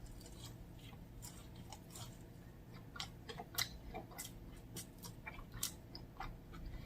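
Faint chewing of a mouthful of food, with small, sharp wet mouth clicks and crackles scattered throughout.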